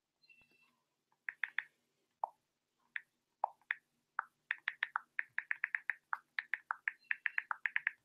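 Key clicks from an iPhone's on-screen keyboard as a text message is typed: a few scattered taps at first, then a quick run of about six clicks a second from about four seconds in.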